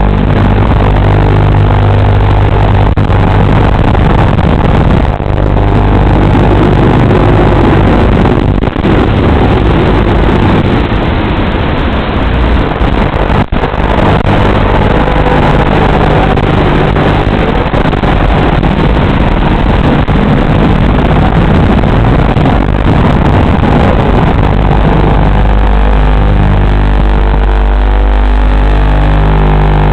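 FPV quadcopter's brushless motors running in flight, a continuous whine whose pitch rises and falls with the throttle, settling into a steadier tone near the end as the drone hovers.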